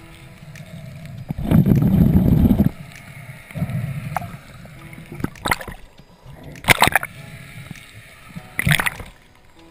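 Underwater sound on a spearfisher's camera while he hauls a speared fish in by the shooting line: a gurgling rush of water about a second and a half in, a smaller one soon after, then three sharp clicks or knocks in the second half.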